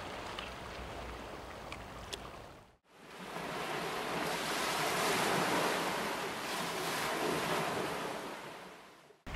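Faint wind and water noise that fades out about three seconds in. Then a hiss of surf swells up and slowly dies away, like a single long wave washing onto a sandy shore.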